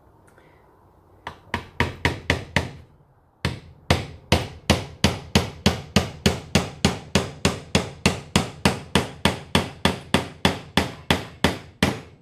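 Hammer driving a small nail into the side of an old wooden box. A short run of about six quick taps, a brief pause, then a long even run of blows at about three a second.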